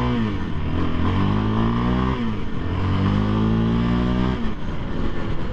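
Yamaha Raptor 700R ATV's single-cylinder four-stroke engine pulling hard under acceleration, its note climbing in pitch and dropping at a gear change about two seconds in, then climbing again before breaking up near the end.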